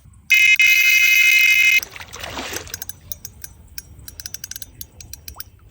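Electronic carp bite alarm giving a loud, steady high beep for about a second and a half, the signal of a fish taking line. A string of quick ticks follows, then a short burst near the end.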